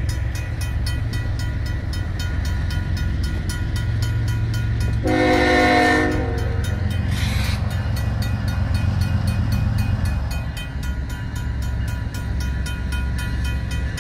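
Railroad crossing's RACO mechanical bell ringing in fast, even strokes over the low rumble of a Union Pacific diesel freight locomotive. About five seconds in, the locomotive's horn sounds one short blast of about a second.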